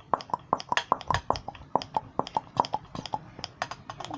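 Hand-held vacuum pump being worked quickly, a rapid even run of sharp clicks several times a second. It is drawing vacuum on the variable-vane turbo's actuator to move the vanes through their full travel.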